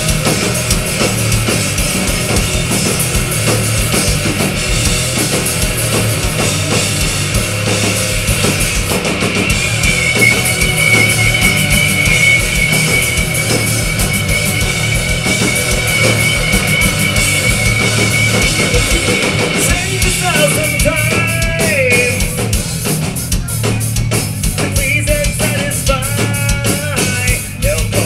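Live rock band playing loud over a steady drum-kit beat with electric guitar. A singer's voice comes in about two-thirds of the way through.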